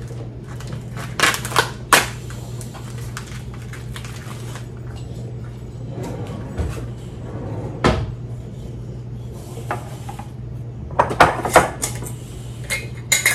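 Kitchen handling sounds: a few knocks and clatters on the counter and cutting board, then a quick run of clicks near the end as the lid is twisted off a large glass jar. A steady low hum lies underneath.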